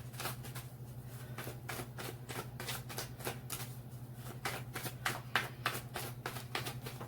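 A deck of tarot cards being shuffled by hand: a quick, continuous run of soft card flicks and slaps, several a second, over a steady low electrical hum.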